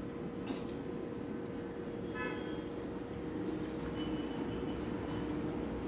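Quiet room tone with a steady hum, a faint click about half a second in, and a brief pitched toot about two seconds in.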